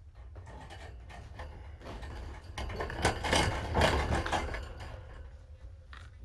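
A run of knocks and clatter over rustling, as things are handled and moved about. It builds about two and a half seconds in, is loudest around three to four seconds, then fades.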